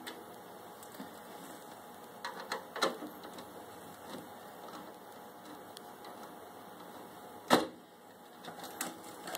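Small clicks and metallic taps from unscrewing a PC power supply's mounting screws from the case, with one sharper knock about seven and a half seconds in.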